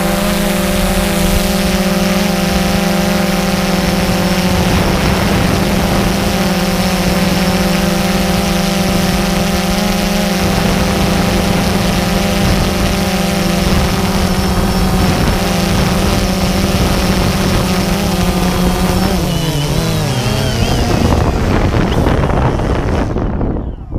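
Quadcopter drone's electric motors and propellers humming steadily with a clear pitch in flight. Near the end the pitch slides down as the drone settles to land, and the motors spin down and stop.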